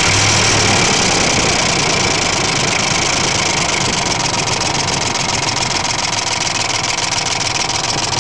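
2001 Ford 5.4-litre V8 running steadily with a fast rattling tap, which the owner guesses might be a bad lifter.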